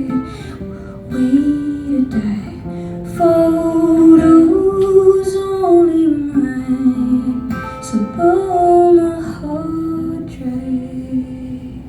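A woman singing long held notes that slide from pitch to pitch, over an acoustic guitar in Nashville stringing (high-strung) plugged into a DI. It is a live solo song, fading a little near the end.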